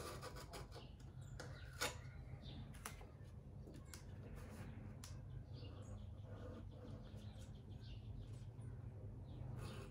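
Faint scratching and clicks of a hobby knife trimming painter's tape on a coach light, with one sharp click about two seconds in, over a low steady hum and birds chirping.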